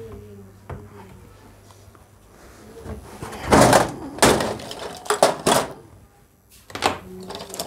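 Audio equipment being handled and moved on a wooden desk: a series of short knocks and scuffing thuds starting about three seconds in, after a faint low hum that fades out.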